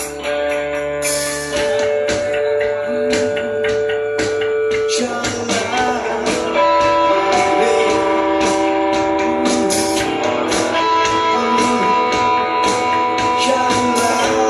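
Instrumental rock music: long held guitar notes over a steady drum beat, with no singing.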